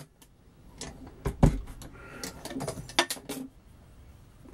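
Hornady Lock-N-Load AP progressive reloading press being cycled through a stroke to seat a .40 S&W bullet in the seater die: metal clicks and knocks from the handle, ram and indexing shellplate, the sharpest knock about a second and a half in, followed by a run of lighter metal clicks.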